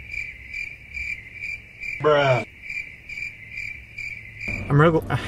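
Cricket chirping sound effect, a steady high pulsing chirp that starts and stops abruptly: the classic "crickets" gag for an awkward silence. A brief murmur from a man's voice comes about two seconds in, and speech returns near the end.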